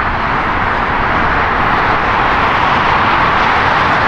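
Steady, loud rushing background noise with a low rumble underneath, holding even throughout with no distinct events.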